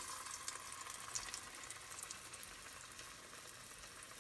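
Breaded croquette frying in a pot of hot oil: a crackling sizzle that slowly eases off.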